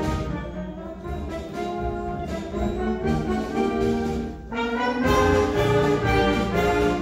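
Symphonic wind band playing: saxophones, clarinets and brass holding sustained chords. The playing is softer at first, then the full band comes in louder about five seconds in.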